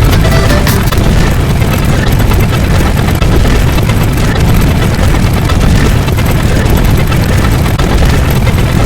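A very loud, distorted, continuous rumbling roar, heaviest in the bass and steady throughout, like a wall of clipped noise.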